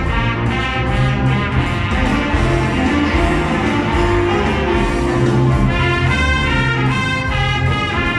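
An ensemble playing an instrumental passage of a song: a sustained melody over a bass line, with a steady beat.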